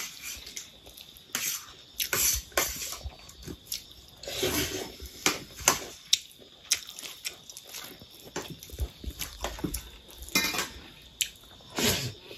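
Eating rice and chicken curry by hand from a steel plate: fingers mixing and scooping rice against the metal, with mouth and chewing sounds. Irregular short clicks and smacks with a few longer rustles.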